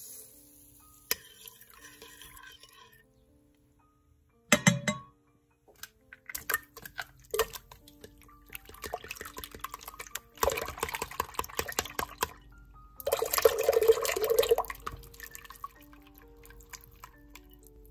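A balloon whisk beating eggs and butter into milk in a bowl, the liquid sloshing and the whisk clicking against the bowl, loudest in two stretches of fast whisking in the second half. A single sharp knock comes about four and a half seconds in. Soft background music plays throughout.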